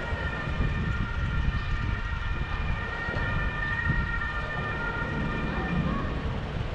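A steady, horn-like tone of several pitches sounding together, held for about six seconds before it fades, over a low rumble of wind on the microphone.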